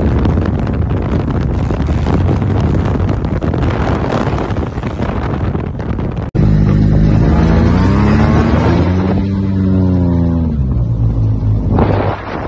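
Maxi-scooter engine running hard during a wheelie, a rushing noisy sound. After a sudden cut about halfway, a scooter engine revs up in rising pitch, falls back, and settles into a low steady drone.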